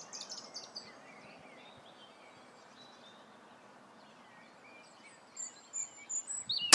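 Birds chirping over a steady outdoor background, then a single sharp shot near the end from a Novritsch SSG24 spring-powered bolt-action airsoft sniper rifle firing a 0.40 g BB.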